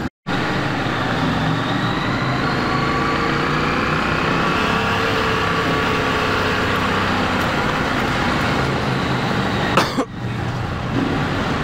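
Adventure motorcycle engine running while riding, its pitch climbing slowly through the middle. A click and a brief dip come about ten seconds in.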